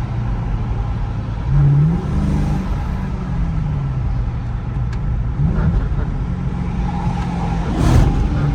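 A 2014 Dodge Charger R/T's 5.7-litre HEMI V8 running on the road. The revs jump up sharply about one and a half seconds in, then fall away, with another short rise about five and a half seconds in. A brief loud rush of noise comes near the end.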